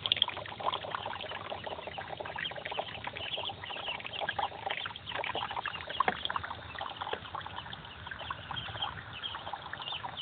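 A flock of young Muscovy ducks calling in many short, rapid peeps.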